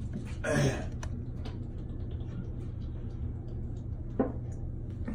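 Steady low room hum, broken by a man's short vocal sound falling in pitch about half a second in and a single sharp knock about four seconds in, with faint ticks of handling between.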